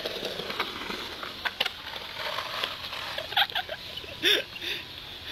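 Skateboard on a concrete bowl: scattered knocks and clatters of the board as the skater falls, with a few short cries. The loudest clatter comes about four seconds in.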